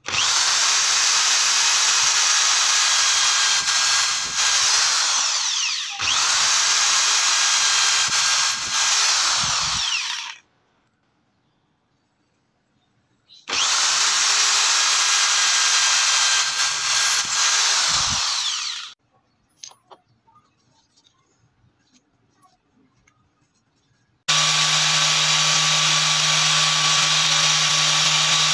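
Corded electric drill boring holes through wooden handle scales, running in three bursts of several seconds each with short pauses between. Near the end an angle grinder starts up and runs steadily with a low hum.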